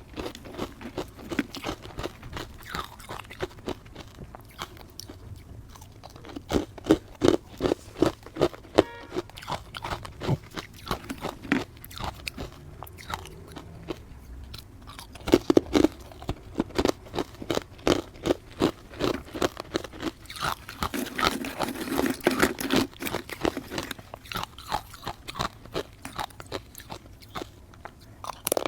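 Close-up crunching and chewing of matcha-powdered ice: a long run of sharp, quick crunches from repeated bites, with a denser, louder stretch of crunching a little past two-thirds of the way through.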